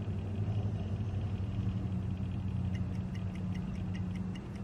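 A steady low hum or rumble, with a faint high tone and a few light ticks in the second half.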